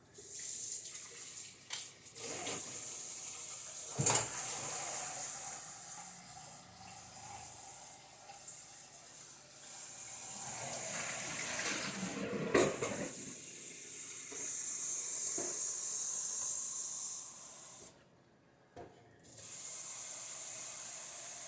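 Kitchen faucet running into a sink in several spells, turned off and on again, with a sharp knock of something set down about four seconds in.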